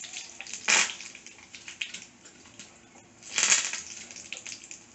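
Curry leaves crackling and sizzling in hot sesame oil with popped mustard seeds and fenugreek, a tempering (tadka). The sizzle fades, broken by two short, louder spits, one under a second in and one about three and a half seconds in.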